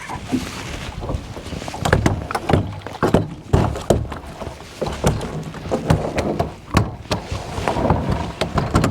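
Irregular knocks and thumps on a fishing boat, many in quick succession, over a rough background noise.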